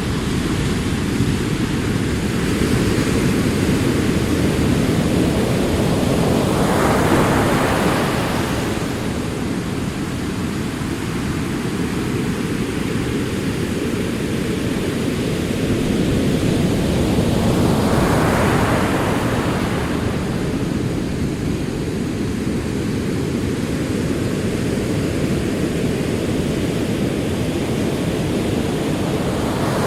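Ocean surf: a steady low rumble of rolling waves, with two waves breaking and washing in more brightly, about seven and eighteen seconds in.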